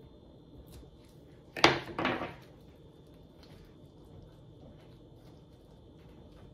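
A paring knife set down on a wooden cutting board: a sharp clatter about a second and a half in, then a second, softer one half a second later.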